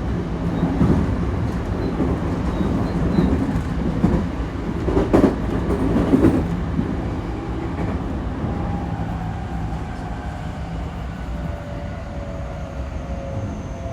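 JR West 223 series electric multiple unit running on the rails, with a few wheel knocks over rail joints about five to six seconds in. From about halfway, the Hitachi IGBT-VVVF traction motors add a thin whine that slowly falls in pitch as the train slows.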